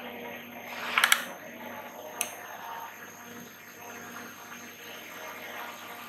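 Quiet room tone with a faint steady high whine, a brief rustle with clicks about a second in, and a single sharp click about two seconds in.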